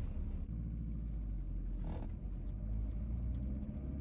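Volkswagen T4 Transporter campervan driving, heard from inside the cab as a steady low engine and road rumble.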